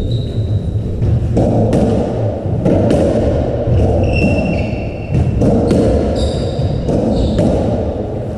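A racketball rally on a squash court: hollow knocks of the rubber ball struck by the rackets and hitting the walls and floor, every half second to a second, each ringing on in the hall. Short shoe squeaks on the wooden floor come near the start and around the middle.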